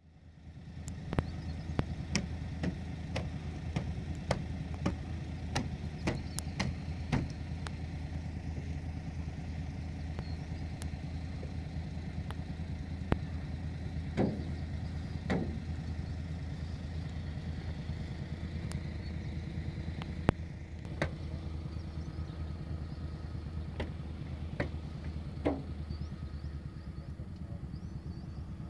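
An engine running steadily with a low, even hum, with many sharp clicks and a few short chirps over it.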